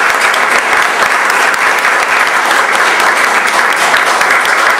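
Audience applauding steadily: many hands clapping together in a room.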